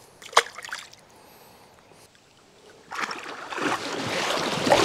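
A sharp click near the start, then water splashing and sloshing that starts about three seconds in and grows louder.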